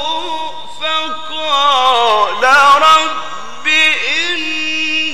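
A man's voice reciting the Quran in the melodic mujawwad style, holding long notes and ornamenting them with wavering, sliding pitch, sung into a microphone.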